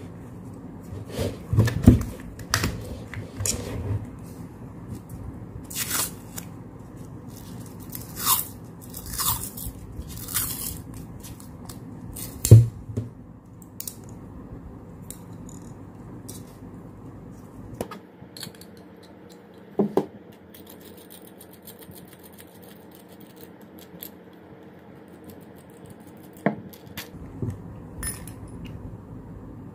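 Handling noises from a homemade coil-winding jig and its enamelled copper-wire coil: scattered clicks and scrapes, with a run of short tearing sounds about six to ten seconds in. A single sharp knock about twelve seconds in is the loudest sound, and after that there are only a few light clicks.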